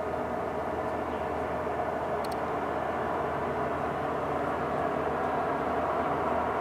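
Heavy diesel demolition machinery running steadily, a continuous mechanical drone that grows slightly louder toward the end.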